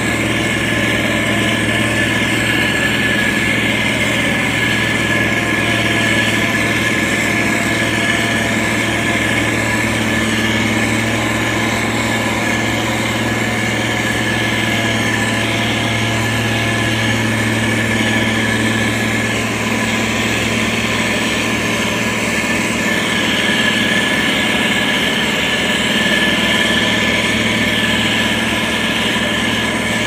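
Engine of a heavy road-building machine running steadily at an even pitch.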